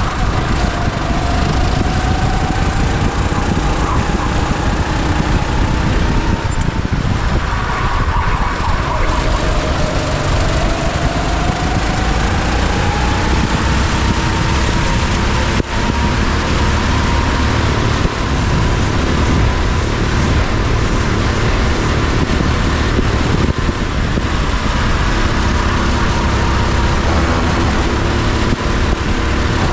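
Go-kart engine at speed, heard from on board the kart over heavy wind and rumble. Its pitch climbs, drops sharply about seven seconds in, then climbs again and holds high for the rest of the stretch.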